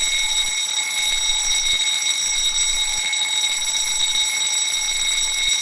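Fire alarm sounding: one steady, unbroken high-pitched tone.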